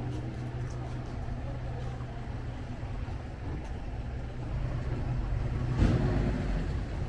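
Motor vehicle engine running with a steady low hum. It grows louder from about four and a half seconds in and peaks near six seconds, like a vehicle passing close or revving.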